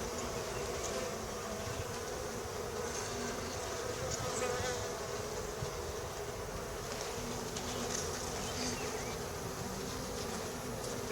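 Honeybee colony buzzing steadily around an opened hive during an inspection: a continuous hum from many bees, even in level throughout.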